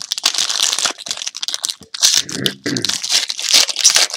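Trading card pack wrapper crinkling and crackling as it is handled and torn open, in several loud spells with short gaps.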